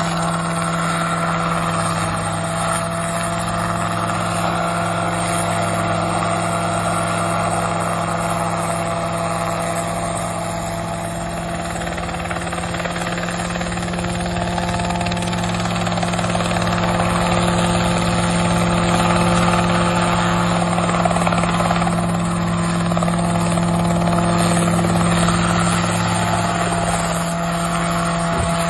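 Small open-frame single-seat helicopter hovering low, its engine and rotor running with a steady drone that grows a little louder in the second half.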